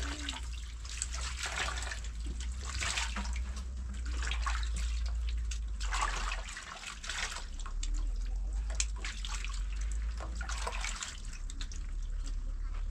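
Water running and splashing in irregular surges, over a steady low rumble.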